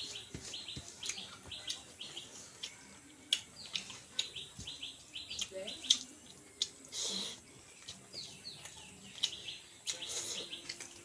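Small birds chirping over and over in quick short notes, with scattered sharp clicks and a brief rustle about seven seconds in.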